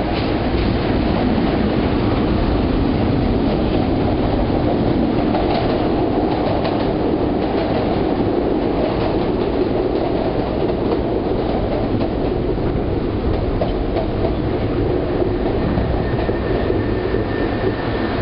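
Chicago L 2600-series rapid-transit cars rolling along the platform: a steady loud rumble of steel wheels on rail with scattered clicking. A thin high steady tone joins near the end.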